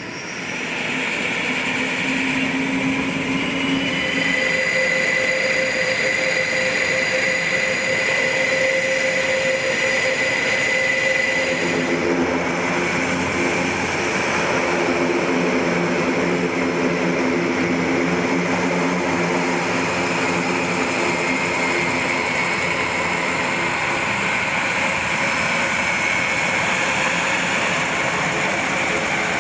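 Airbus A400M's turboprop engines running steadily, a loud, even engine noise with steady humming tones over it that shift in pitch about halfway through.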